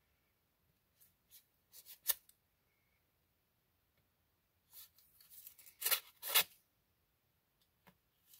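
A mailed package being opened by hand: scattered short rustles and tears of its packaging, the loudest two about six seconds in.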